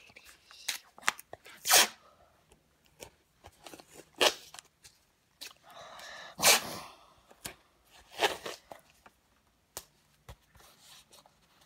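A phone being handled close to its own microphone: scattered short rustles and bumps, a few of them loud, with quiet gaps in a small room.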